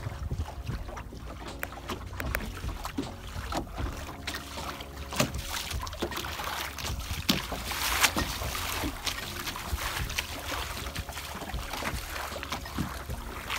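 Water splashing and slapping irregularly against the bow of a small wooden sailing dinghy under way, with a louder spell about eight seconds in. Wind rumbles on the microphone.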